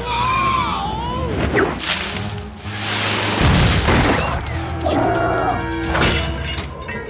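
Cartoon crash sound effects over background music: a loud crash about three and a half seconds in as a sliding log cabin slams into a pine tree, with smaller impacts before and after it and a short whistle that rises and falls just after the crash.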